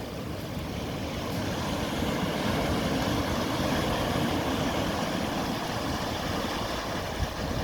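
Ocean surf washing in as a steady rush that swells a little about two seconds in.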